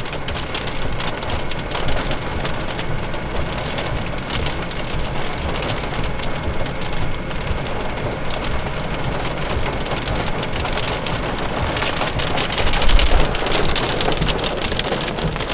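Heavy rain mixed with pea-size hail drumming on a car roof, heard from inside the cabin: a dense patter of many small ticks. It swells louder with a low rumble near the end.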